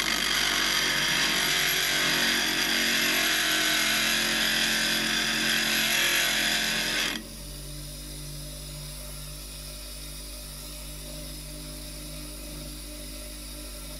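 A steel chisel is ground on an old heavy-duty bench grinder's wheel, a loud steady grinding hiss for about seven seconds. The chisel is then lifted off, the grinding cuts off sharply, and the grinder's motor is left running with a steady hum.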